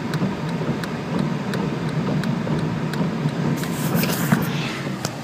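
Car running down a wet road, heard from inside the cabin: a steady low road rumble with faint regular ticks about three times a second. A hissing swish rises and fades about four seconds in.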